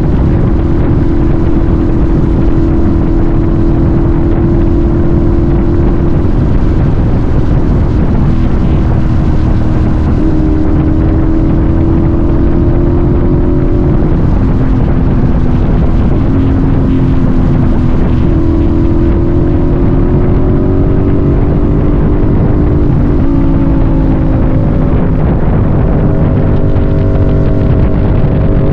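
A vehicle's engine running on the move, with constant wind rush over the microphone; its drone steps up and down in pitch several times as the revs change.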